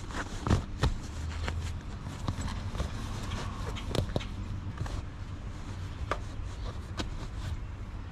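Faux-leather seat cover being pulled and worked over a truck's rear seat: rustling and rubbing with scattered knocks and clicks, the sharpest about half a second in and about four seconds in.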